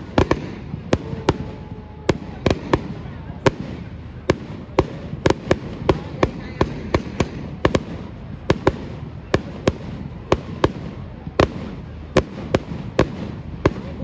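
Fireworks display: aerial shells bursting in many sharp bangs in quick, uneven succession, about two or three a second, over a continuous rumble.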